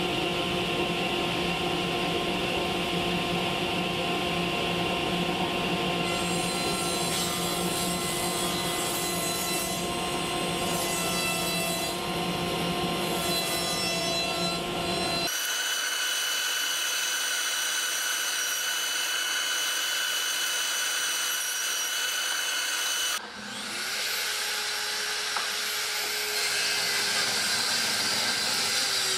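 Power saws cutting sheet panels: a table saw runs steadily as a panel is ripped, then the sound changes abruptly twice, and about 23 seconds in a handheld circular saw spins up with a rising whine and cuts through a panel.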